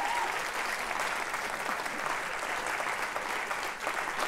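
Audience applauding, a steady spell of many people clapping.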